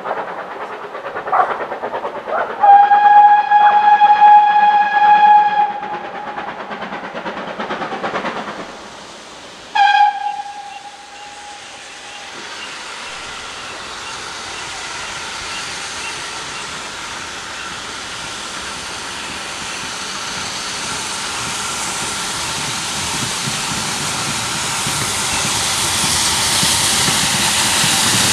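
GWR 'Large Prairie' 2-6-2T steam locomotive No. 4160 sounding its single-note whistle: one long blast of about three seconds, then a short toot about ten seconds in. After that the approaching train's running noise and steam hiss grow steadily louder.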